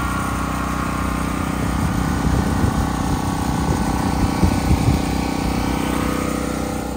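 Champion dual-fuel portable generator running steadily, a small engine's even drone.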